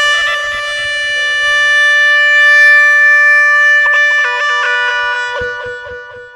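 Instrumental music: one chord of steady pitched tones is held for about four seconds, then a few shorter notes change pitch as the sound fades out near the end.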